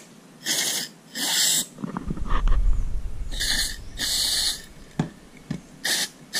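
Aerosol carburetor cleaner sprayed through a thin extension straw in about five short hissing bursts, each under a second, jetting into a jet ski carburetor's fuel inlet to flush dirt from the passages. A low rumble sounds between the bursts around the middle.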